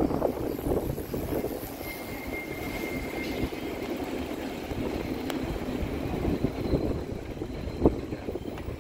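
Steady road-traffic rumble of a busy city street with double-decker buses standing at their stops. There is a brief faint high whine about two seconds in and a sharp knock near the end.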